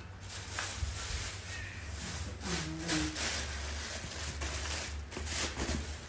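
Plastic bag rustling and being handled in a run of crackles, with a brief low voice sound about two and a half seconds in.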